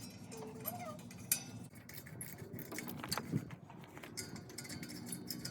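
Faint metallic clinks and taps of engine bolts being pulled out and handled, with a couple of sharper clicks about a second and three seconds in. A brief faint whine sounds about half a second in.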